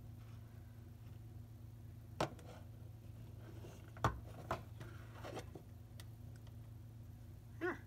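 A homemade popsicle-stick mousetrap car with plastic lid wheels is set down and handled on a tabletop, giving a few light knocks and clicks, the loudest about four seconds in, over a steady low hum.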